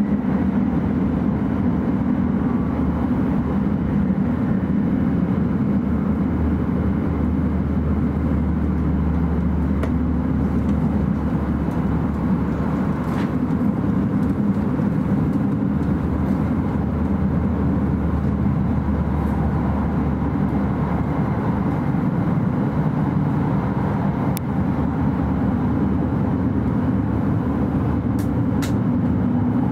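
Steady low rumble and rush of an E5 series Shinkansen running, heard inside the passenger cabin. A few faint clicks sound over it.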